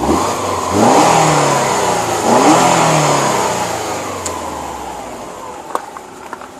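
Turbocharged flat-four of a 2006 Subaru Legacy GT, running with a used replacement turbo and a catless up-pipe, revved in two quick throttle blips. Engine speed then falls slowly back toward idle.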